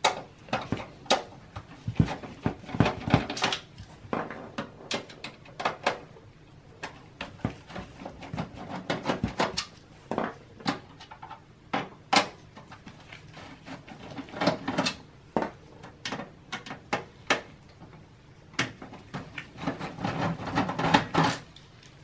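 Phillips screwdriver backing out the power supply's mounting screws from the back of a Dell Optiplex 780's metal case: irregular clicks, scrapes and knocks, with the small screws set down on the table.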